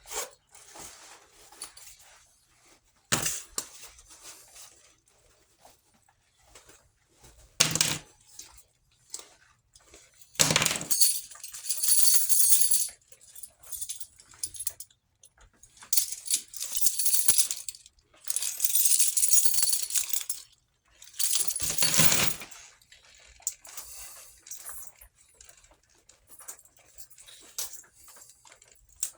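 Everyday-carry items emptied from pockets and handled: a couple of sharp knocks as things are set down, about 3 and 8 seconds in, then several longer bursts of handling noise a second or two each.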